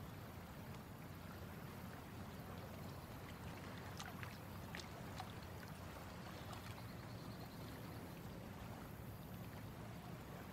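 Water lapping gently against a small boat's hull, a faint, steady lake ambience, with a few light high ticks or drips about four to five seconds in.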